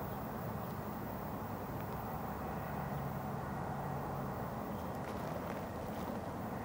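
Distant freight train rumbling: a steady low rumble, with a low hum standing out for a couple of seconds in the middle.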